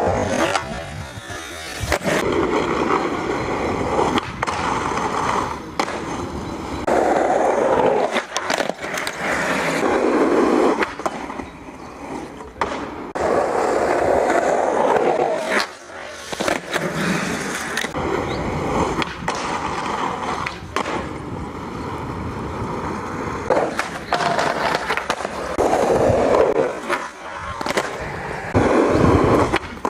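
Skateboard wheels rolling over concrete in repeated runs, with sharp clacks of the board popping and landing on tricks.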